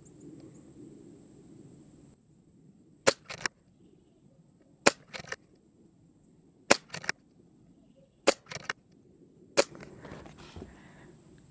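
Brocock Sniper XR Sahara PCP air rifle firing five shots of .22 pellets, one every one and a half to two seconds. Each shot is a sharp crack, most followed closely by a couple of quieter clicks.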